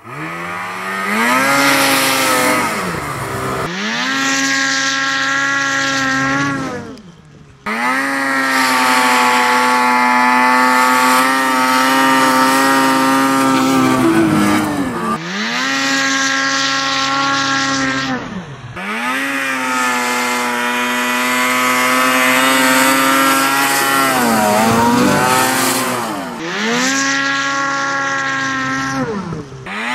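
Ski-Doo MXZ 800 two-stroke snowmobile engine revving hard, its pitch holding high and then dipping and climbing as the throttle is worked. It comes as several short clips joined by abrupt cuts: first on the stock silencer, and near the end on an MBRP trailcan.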